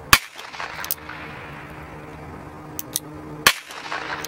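Two revolver shots, about three and a half seconds apart, each a sharp crack, with a few lighter clicks in between.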